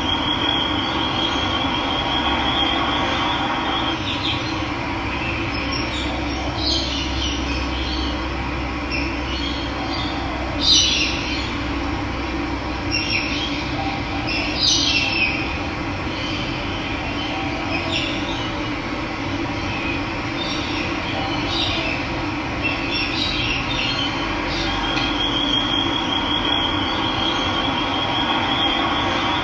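Running water rushing steadily, with birds calling over it: a high, rapid trill for the first few seconds and again near the end, and scattered short chirps in between.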